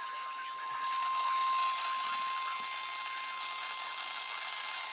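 Weather radio receiver hiss, the static of the broadcast channel between spoken lines, with a thin steady high-pitched tone running through it that swells about a second in and fades back.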